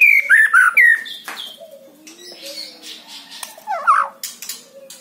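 White-rumped shama (murai batu) singing: a quick run of descending whistled notes in the first second, then quieter scattered notes and a short lower twittering phrase near four seconds.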